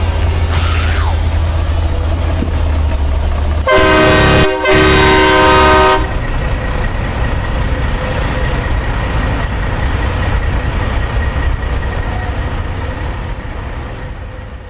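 Semi-truck air horn sounding in two blasts, a short one then a longer one, about two seconds in all, over a steady low drone that fades out at the end.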